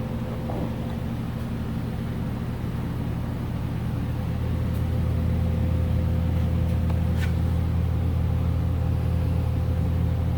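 Steady low mechanical hum with a faint constant higher tone, growing a little louder about halfway through.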